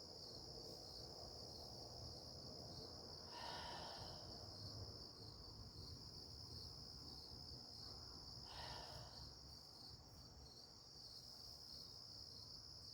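A faint, steady, high-pitched insect chorus trilling without a break. Twice, about three and a half seconds in and again about eight and a half seconds in, a soft breath is heard.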